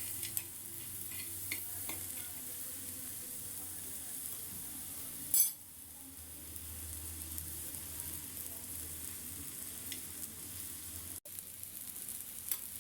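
Borax (suhaga) sizzling on a hot tawa griddle as it melts and begins to puff up, with a spoon stirring it round. A short, louder clatter about five seconds in.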